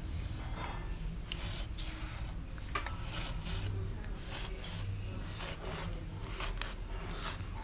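Chef's knife scoring the skin and flesh of a wallago attu catfish on a wooden cutting board: a series of short scraping slices, one or two a second.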